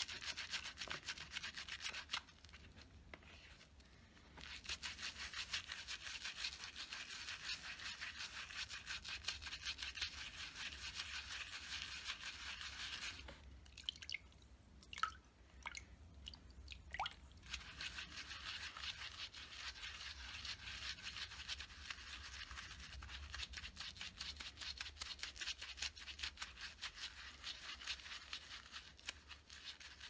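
Wet, soapy makeup-brush bristles scrubbed rapidly back and forth over the ridged surface of a silicone brush-cleaning pad, a fast rubbing rasp. It stops briefly a couple of seconds in, and again for a few seconds around the middle, where a few drips of water are heard.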